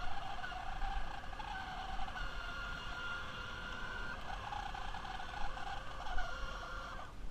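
Small electric motor and plastic gearbox of a 1986 New Bright 1957 Chevrolet Bel Air toy car running, a steady whine that shifts in pitch a few times and cuts off suddenly near the end.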